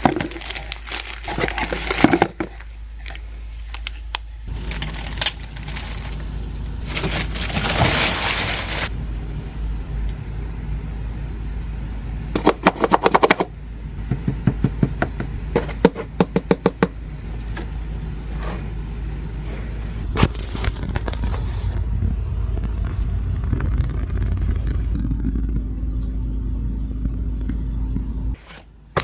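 Unboxing handling noises: packaging rustling, with bursts of rapid clicking and rattling as parts are handled, over a steady low hum that stops near the end.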